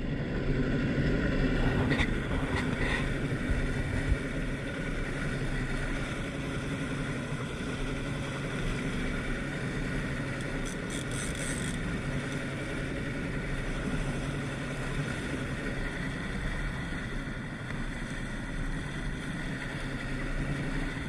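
Boat's outboard motor running steadily, pushing the boat along at an even speed with a little more power in the first couple of seconds.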